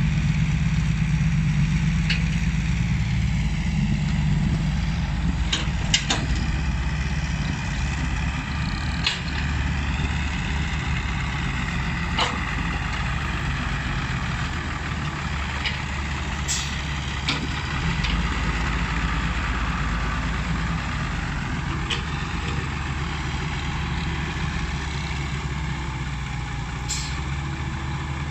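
Komatsu hydraulic excavator's diesel engine running steadily while digging, with a wavering higher whine above it. Short sharp knocks come now and then, about a dozen over the stretch.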